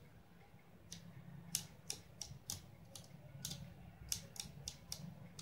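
Faint, quick, irregular clicks of abacus beads flicked by fingers, about a dozen of them, starting about a second in, as beads are pushed one after another in a fast drill of repeatedly subtracting one.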